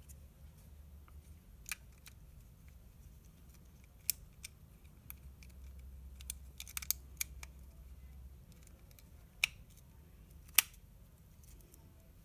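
Small, sharp clicks and taps of the Detailer trimmer's steel blade and plastic blade holder being handled and fitted onto its housing. A quick run of clicks comes in the middle, and the two loudest single clicks come near the end.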